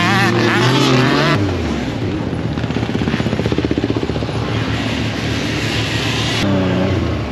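Off-road buggy engine running: it drops from revs to a rapidly pulsing idle about a second and a half in, and starts revving up again near the end.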